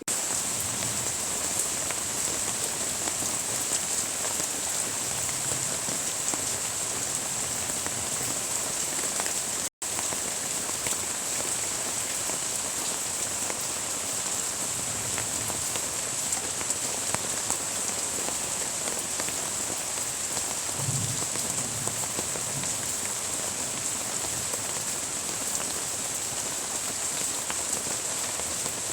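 Steady rain falling on surfaces, a dense even hiss of drops. It cuts out for a split second about ten seconds in.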